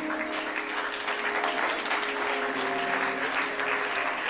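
A congregation clapping and applauding steadily, with a few held musical notes sounding underneath.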